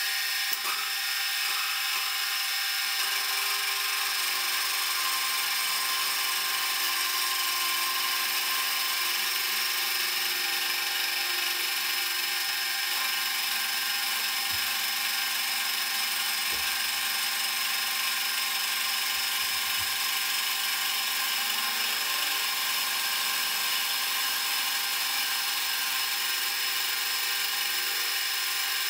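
Milling machine face-milling a metal contact surface: a face-mill cutter spinning and cutting at a steady pace, heard as an even high-pitched whine and hiss.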